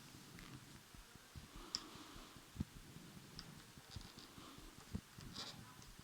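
Faint, scattered clicks and light taps of plastic laser-printer parts being handled and turned by hand, about six in six seconds.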